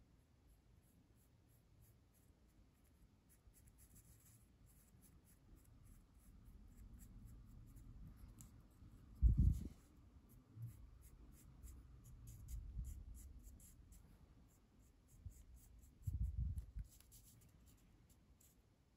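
Ink brush stroking across a paper page, a faint soft scratching of bristles on paper, with a couple of short low thumps about nine and sixteen seconds in.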